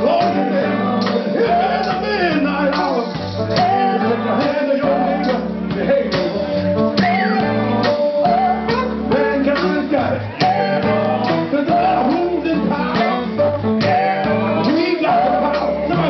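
Live soul band playing: electric guitars, bass and drums, with a male singer's voice over the top.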